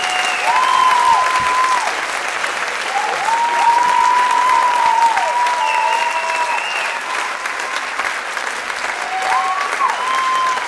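Audience applauding, with several drawn-out high-pitched calls from the crowd rising, holding and falling over the clapping.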